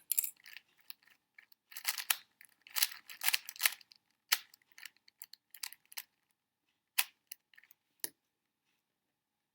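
GAN 356 X magnetic plastic speed cube being twisted and handled: a quick irregular run of clicks and clacks from its layers, busiest in the first half, thinning out and stopping about a second before the end.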